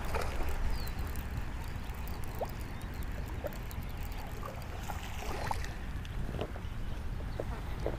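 Steady low wind rumble on the camera microphone, with faint scattered clicks of a baitcasting reel being cranked.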